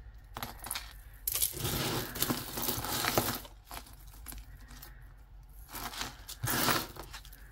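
Metal necklace chains and beads clinking and scraping as a tangle of costume jewelry is handled and pulled across a tabletop, in two bouts: one about a second in lasting a couple of seconds, and a shorter one near the end.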